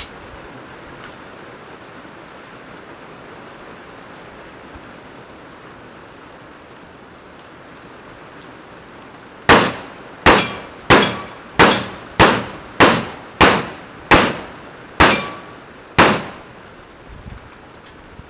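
Steady rain, then ten handgun shots in quick succession over about six seconds, starting about nine and a half seconds in. Several shots are followed by a short high ring from the steel target being hit.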